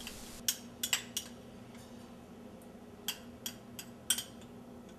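A metal spoon clinking against a small glass cup and a ceramic bowl as yogurt is scooped out. The light clicks come in two groups, one in the first second or so and another in the last two seconds.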